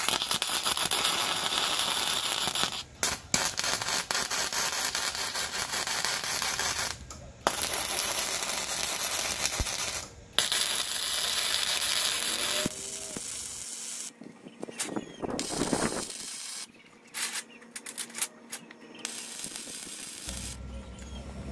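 MIG welder arc crackling as it welds steel angle iron, in several runs of a few seconds each with short breaks between them. In the second half the welds come as shorter, quieter bursts, as for tack welds.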